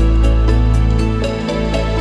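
Background music: calm new-age track with sustained notes over a deep bass and soft ticking beat.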